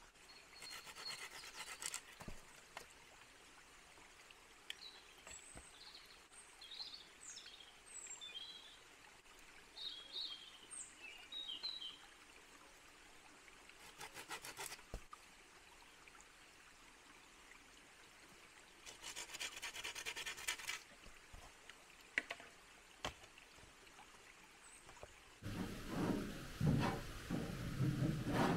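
Small birds chirping in short calls through the first half, with three brief spells of quick rasping strokes of a blade working a wooden stick. In the last few seconds, louder splashing and pouring of stream water around a tin bucket.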